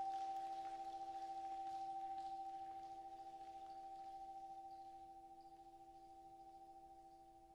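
Brass band's final soft chord: a few steady notes held together, fading slowly away toward silence.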